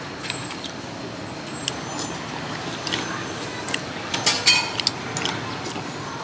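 Spoons and bowls clinking during a meal: scattered light clinks over a steady background din, with a quick cluster of louder clinks about four and a half seconds in.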